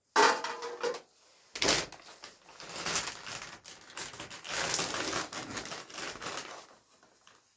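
A metal spoon scraping and clanking against a steel bowl, ringing briefly, with a knock about a second and a half in. Then a plastic packet of shredded cheese crinkles and rustles as it is handled for several seconds.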